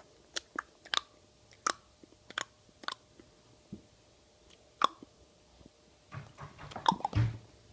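Six-month-old baby making popping noises with his lips and mouth: a string of sharp little pops, some half a second to a second apart, then a quicker flurry of pops with a short low sound near the end.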